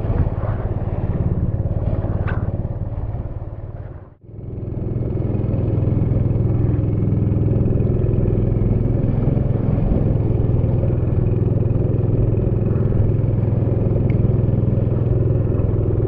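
A small boat's engine running steadily under way, a continuous even drone. The sound fades out briefly about four seconds in and comes back at the same steady level.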